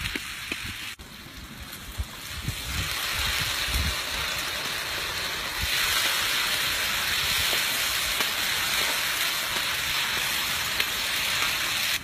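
Food sizzling in hot oil in a cooking pot: a steady frying hiss that grows louder in two steps, about two and a half seconds in and again about six seconds in.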